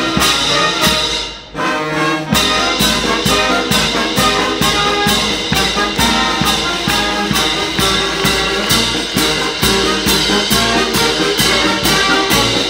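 High-school wind band playing a lively tune: trumpets, trombones and saxophones over a steady bass-drum and cymbal beat. The music briefly drops away about a second and a half in, then the band comes back in with a loud accent.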